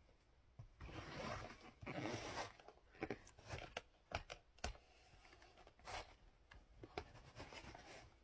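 Packaging being handled during the unboxing of a toy remote-control car: rustling and tearing in the first few seconds, then a run of sharp clicks and light knocks.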